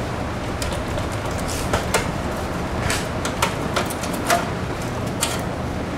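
Scattered light clicks and clanks of metal parts and tools as hands work loose the exhaust pipes and scat tubing on a light aircraft engine, about nine in all, over a steady low hum.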